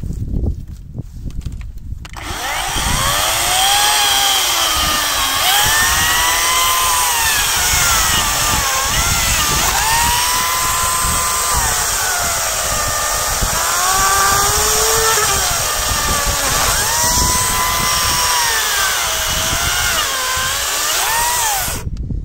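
Parkside PKSA 40-Li A1 dual-battery cordless chainsaw starting about two seconds in and cutting through a small tree stump. Its motor whine dips in pitch several times as the chain bites into the wood under load, then rises again. It stops abruptly near the end.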